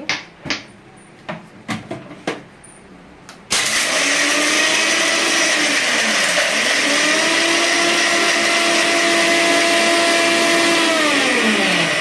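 Electric mixer grinder crushing ice cubes. After a few knocks and clicks, the motor starts suddenly about three and a half seconds in. Its pitch dips briefly and then holds steady, and near the end it winds down with falling pitch as it is switched off.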